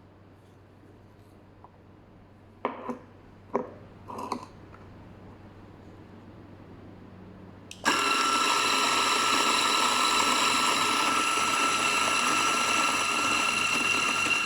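A few short clicks and knocks, then about eight seconds in a DF64 electric coffee grinder with 64 mm flat burrs switches on and runs steadily with a loud, even whine.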